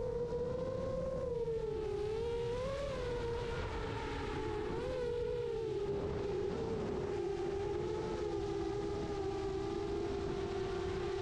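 The iFlight Chimera 7 Pro FPV quadcopter's brushless motors and propellers whining in flight, heard from the onboard camera. The pitch wavers up and down with throttle changes for the first half and then settles a little lower.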